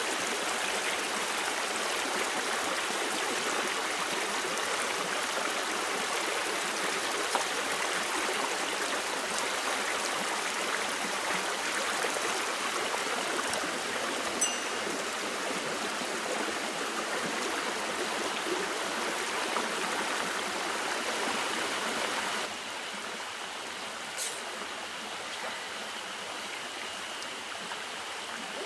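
A small mountain stream rushing and splashing over rocks, a steady even rush of water that drops suddenly to a slightly quieter level about three-quarters of the way through. A couple of brief sharp ticks stand out.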